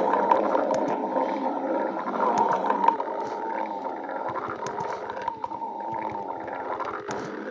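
Stomach growling: a long, continuous gurgling rumble, louder for the first three seconds or so and then easing off a little.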